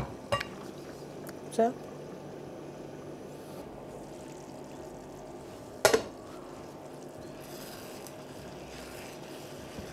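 Rice, tomato and pepper stew simmering steadily in a pan, with a sharp clink of a glass pot lid about six seconds in and a couple of lighter knocks of a wooden spoon early on.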